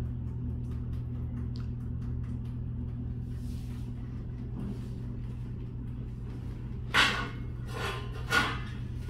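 Three sharp knocks near the end, with shoes clacking against a ceramic tile floor, over a steady low hum.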